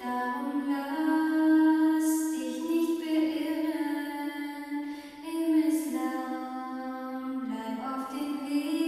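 A woman singing a German Islamic devotional song (nazm) a cappella, a slow melody of long held notes.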